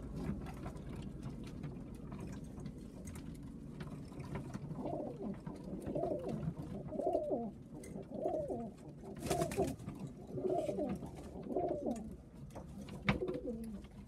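Domestic pigeons cooing in a wooden loft. From about a third of the way in comes a run of about eight similar coos, each a little over a second apart, with a short sharp clatter about two-thirds of the way through.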